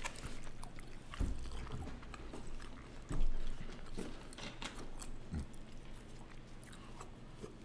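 Close-miked chewing and eating of chicken wings: small wet clicks and mouth sounds, with two louder low thumps, one about a second in and a stronger one about three seconds in.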